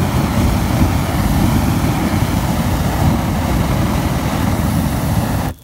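Flamethrower firing a continuous jet of flame: a loud, steady rushing noise that cuts off suddenly near the end.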